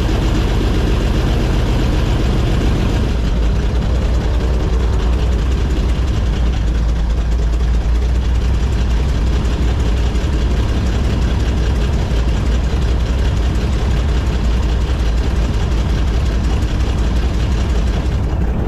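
Airboat engine and propeller running steadily under way, a loud constant drone, its higher hiss falling away near the end.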